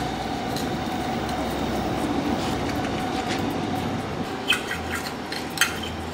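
Oyster knife being worked between the halves of a large rock oyster's shell, which is hard to open. In the second half come several sharp clicks and scrapes of the metal blade on the shell, over a steady hum with a faint whining tone.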